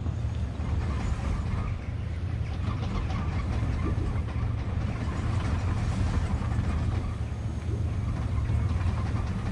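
Superyacht's diesel engines running at low idle during close manoeuvring, a steady low rumble.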